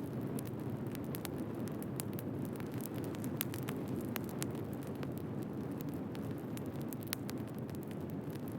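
Wood fire burning: irregular sharp crackles and pops, several a second, over a steady low rush of flame.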